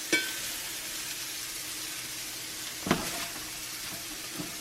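Mushrooms frying and sizzling in a cast iron skillet, a steady hiss. A utensil clinks against the pan twice while they are stirred, once just at the start with a short metallic ring and again about three seconds in.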